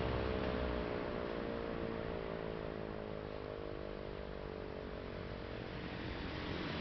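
E57 electro-mechanical motor siren winding down after its warning signal: its tone slides slowly lower and fades away over the first few seconds. A steady rushing background noise remains.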